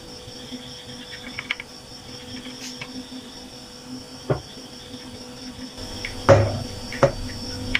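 Kitchen knife cutting soft bread on a ceramic plate: a few light clicks as the blade meets the plate, then two louder knocks near the end. A faint steady high-pitched tone runs underneath.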